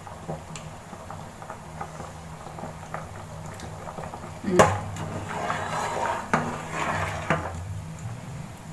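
A slotted spatula stirring and scooping through boiling basmati rice in a metal pot, with bubbling water, small scrapes and a few knocks of the spatula on the pot. The sharpest knock comes about four and a half seconds in. A steady low hum runs underneath.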